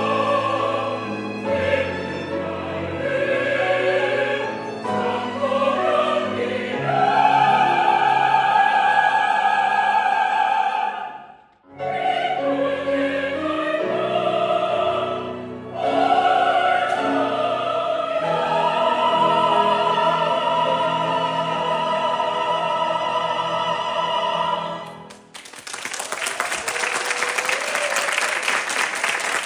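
A mixed choir with piano and string ensemble sings a Korean art-pop choral song, with a moment's break before the middle and long held chords toward the end. The final chord cuts off a few seconds before the end, and audience applause breaks out.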